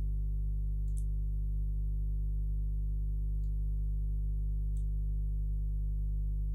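Steady low electrical hum, with a few faint clicks about one, three and a half and five seconds in.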